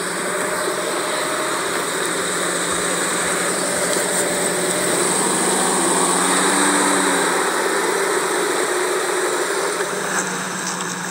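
A motor vehicle's engine running steadily, revving up and back down once about halfway through.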